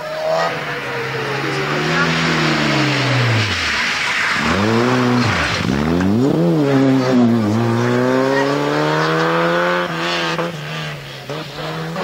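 Rally car engine through a corner. The revs fall and jump sharply a few times near the middle, then climb steadily as the car accelerates away.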